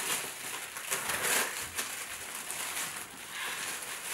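Thin plastic bag rustling and crinkling as it is handled and opened, in irregular surges.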